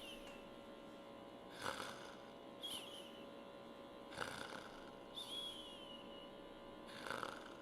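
A man's faint snoring breaths, one about every two and a half seconds, with a short falling whistle-like tone between each snore.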